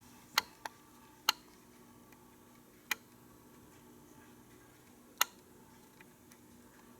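Five sharp, irregular clicks, spaced unevenly over the first five seconds, above a faint steady hum.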